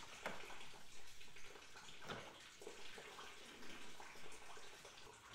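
Faint trickle of coolant draining from the radiator's drain petcock into a catch pan, with a few light clicks and scrapes from a hose removal pick working loose the upper radiator hose.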